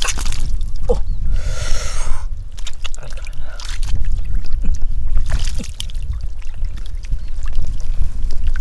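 Hands splashing and groping in shallow muddy water, with short irregular splashes and one longer slosh about a second and a half in, over a steady low rumble.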